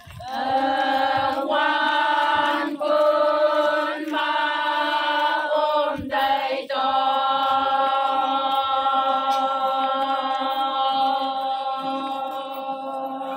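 Group of Konyak Naga women chanting in unison, a traditional dance song of long held notes with short breaks between phrases, then one long unbroken held note through the second half.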